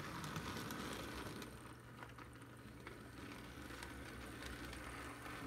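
HO scale model diesel locomotive running along the track in reverse: a faint motor hum with light clicking from the wheels on the rails.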